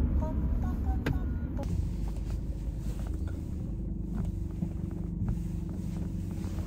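Steady low rumble of road and engine noise inside a moving car's cabin. For the first second and a half, classical music from the car stereo plays faintly over it.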